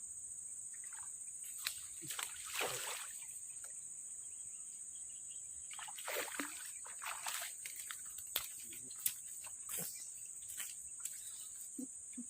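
Insects chirping in a steady high-pitched drone, with water splashing twice, about two seconds in and again about six seconds in, and a few short sharp clicks in the second half.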